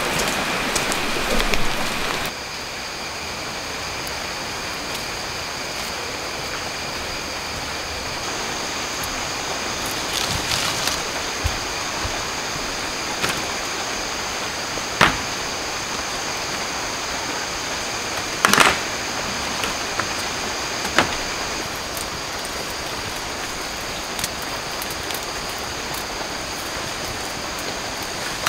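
Jungle ambience of steady rushing running water, with a thin, steady high whine over it from about a third of the way in. A few sharp knocks of bamboo strips being handled come in the second half.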